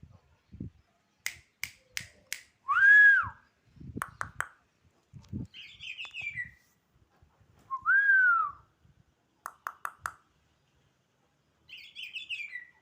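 Black-naped oriole (kepodang) singing: two loud, fluty whistles that rise and fall, with harsher, scratchy descending chatters between them. Groups of sharp clicks come early on and again after the second whistle.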